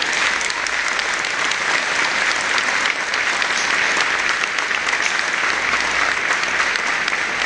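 A large crowd applauding, a dense, steady patter of many hands clapping.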